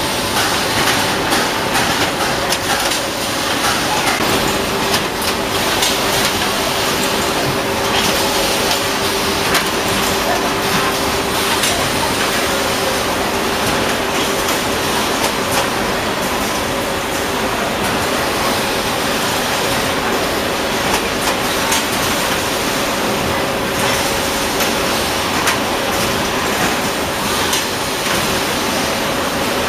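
Washing-powder filling and packing line machinery running: a loud, steady mechanical din with a continuous hum and frequent clicks and clatter.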